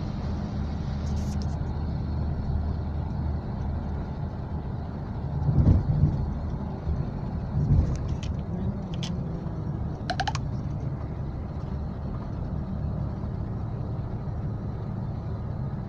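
Steady low rumble, with louder swells about six and eight seconds in, a few brief clicks, and a short rising high chirp about ten seconds in.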